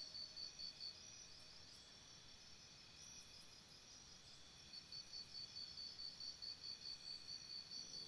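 Near silence with a faint, high-pitched pulsing chirp about three times a second, like an insect's. It fades out about a second in and comes back about five seconds in.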